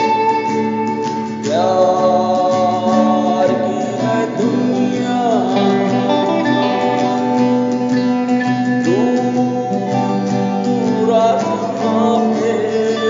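Acoustic guitar strumming a steady rhythm under an electric lead guitar and singing, with sliding, bending notes in the melody.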